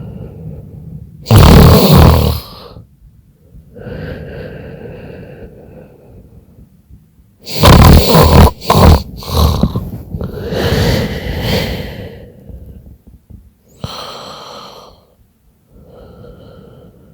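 A woman snoring in her sleep during a nap while ill: slow snoring breaths, the loudest about a second and a half in and again around eight seconds in, with softer breaths between.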